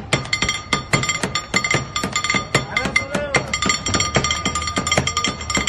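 Rapid, continuous metallic clinking and clatter of serving utensils against metal pans and plates, with crowd chatter underneath.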